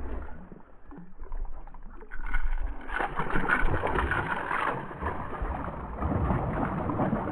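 Largemouth bass on a fishing line thrashing at the water's surface, splashing repeatedly, loudest from about two seconds in.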